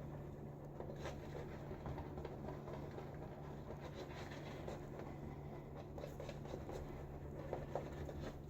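Badger shaving brush working shaving soap lather in a bowl: soft, irregular scratchy swishing as the lather is thinned down with water. A faint steady low hum runs underneath.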